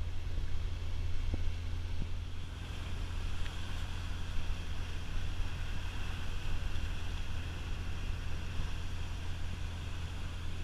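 Motor yacht under way: its engines drone steadily, with water rushing along the hull and wind on the microphone. The rushing hiss grows stronger a couple of seconds in.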